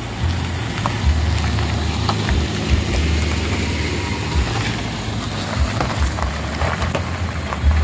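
A small MPV passing close at low speed on a loose gravel road: its engine runs low and even while the tyres crunch over the stones, giving scattered small clicks and pops over a steady rumble.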